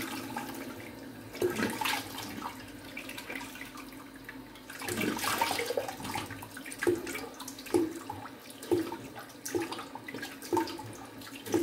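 Bathroom tap running into a sink while water is splashed onto the face by the handful to rinse off shaving cream after a shave. In the second half the splashes come about once a second.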